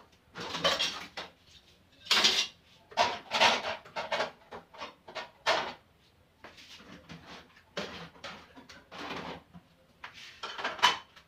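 Washed dishes and pots being set into a wire dish rack: irregular clattering and clinking of plates, bowls and pans, coming in short bursts with brief gaps between.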